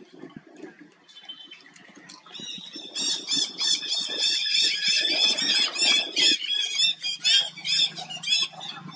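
Young macaque screaming: a fast string of short, shrill, arching squeals, several a second, starting about two and a half seconds in and keeping on without a break.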